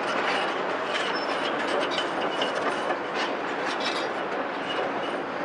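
CAT 374F excavator with its C15 diesel running as the upper structure swings round, with a dense mechanical noise and a run of short clanks and knocks in the middle, plus faint high squeaks.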